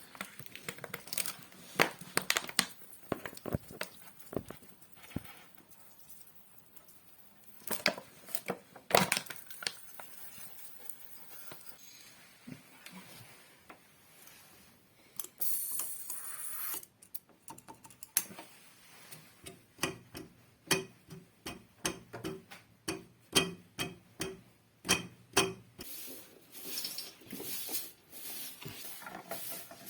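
Handling noise from cleaning packed dust off the back of a refrigerator: irregular clicks, knocks and rustling, a short hissing rustle about halfway through, then a run of regular rubbing strokes, about two a second, in the second half.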